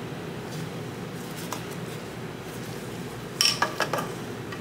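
A quick run of light metallic clicks and clinks about three and a half seconds in, as a steel-band piston ring compressor holding a piston is set against the cylinder bore of a Predator 212 engine block. Before that there is only a faint steady room hum.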